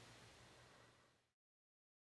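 Near silence: faint room hiss with a low hum, fading out and cutting to total silence about a second in.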